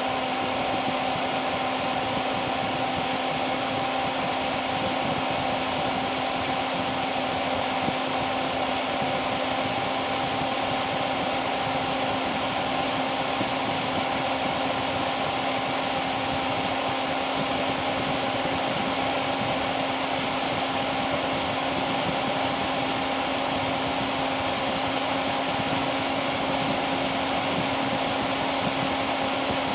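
Dell Dimension E521's BTX CPU cooling fan running at high speed under full CPU load: a steady rush of air with a constant humming tone in it.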